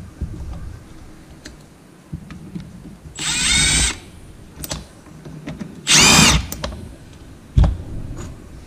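A cordless power tool runs in two short bursts, about three and six seconds in, its motor whine bending in pitch. A single sharp thump comes near the end, with a few light clicks in between.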